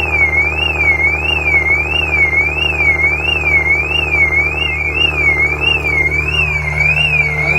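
A car alarm siren wailing, its tone sweeping up and down about twice a second, over the steady idle of a 2014 Maserati Ghibli's engine just after a cold start.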